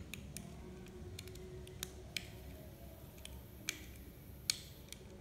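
Small, light clicks and ticks as a plastic electrical plug and its wire are handled and worked in the fingers, a few sharp clicks scattered irregularly.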